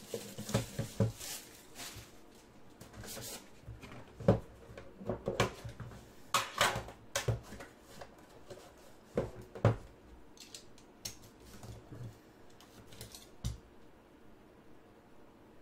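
Cardboard packaging of a Panini Immaculate baseball box being handled and opened: irregular taps, knocks and short sliding scrapes as the lid comes off and the inner card box is lifted out, with a run of light ticks near the end.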